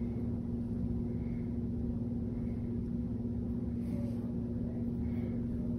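A steady background hum with one held, unchanging tone over a low drone, like a running appliance or room machinery.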